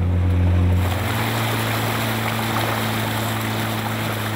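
A boat's engine running with a steady low hum, and water rushing and splashing along the wooden hull. The rushing water comes in about a second in.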